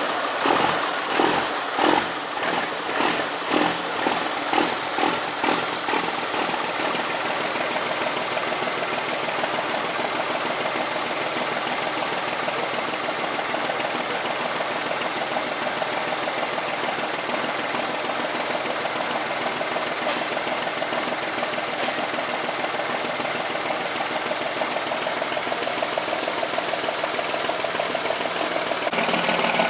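Cummins KTA600 inline-six turbo diesel in a 1975 Dodge Big Horn, just fired up: it runs lumpy, surging about twice a second for the first several seconds, then settles into a steady idle. Near the end the engine speed starts to rise.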